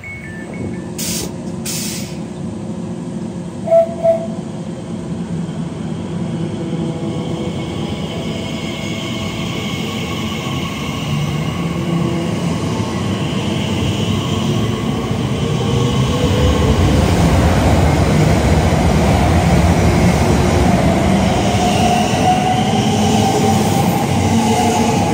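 Elizabeth line Class 345 electric multiple unit passing close along a station platform, its running noise building steadily to a loud, even rumble, with an electric whine rising in pitch near the end. A short, loud double blip comes about four seconds in.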